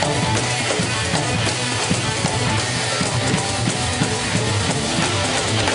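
Live instrumental rock-funk band playing loudly: electric guitar and electric bass over a drum kit with congas and hand percussion, driven by a busy, steady drum rhythm.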